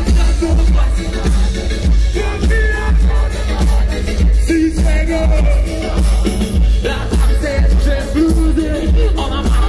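A live band plays loud music through an arena PA, with drums and a heavy, regular bass beat. A voice sings over it.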